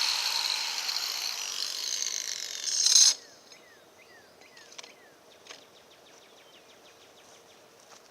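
Power grinder running on stone, its whine sinking slowly in pitch and level, then a short loud burst and an abrupt stop about three seconds in. Afterwards only faint chirps and a rapid ticking trill are heard.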